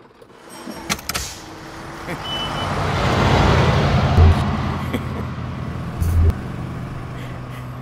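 Bus pulling away: its engine swells over a couple of seconds, then settles into a steady low running hum. There are sharp metallic clanks about a second in and two low thumps later on.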